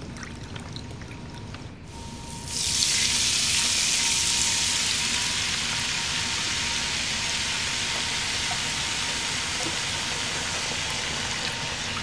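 Chicken broth poured into a hot frying pan of melted butter and garlic: a steady hiss of liquid and sizzling that starts suddenly about two and a half seconds in and eases slightly.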